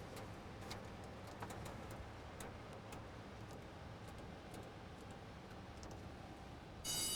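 Steady low hum of a jet airliner's flight deck at the gate, with a few faint clicks. Near the end a loud, steady high-pitched whine starts suddenly.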